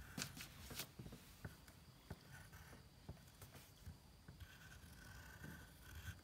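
Faint scratching of a pencil drawing small circles on paper, with light ticks and taps of the lead, most in the first second.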